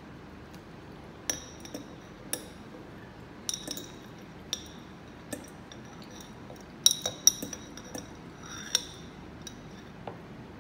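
A metal fork clinking against a glass jar while scooping from it: about a dozen sharp clinks, each with a brief high ring, at irregular intervals. The loudest are a close pair about seven seconds in.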